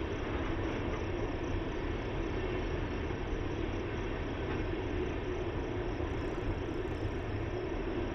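Empty tank cars of a freight train rolling along the track, a steady rumble of wheels on rail.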